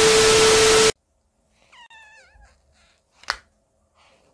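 A TV-static glitch sound effect: a loud burst of hiss with a steady tone under it, about a second long, cutting off suddenly. Then a faint, short, wavering high call about two seconds in, and a single sharp click a little later.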